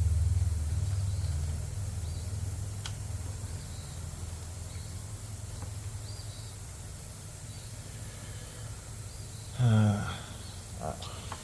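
Small engine of a Craftsman pressure washer running, louder for the first second and a half and then settling to a lower, steady run, with faint high chirps over it. About ten seconds in, a short voice sound falling in pitch is the loudest thing.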